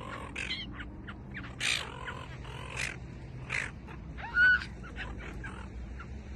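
Silver gulls squawking in a flock competing for thrown fish: a string of short, harsh calls about a second apart, the loudest about four and a half seconds in.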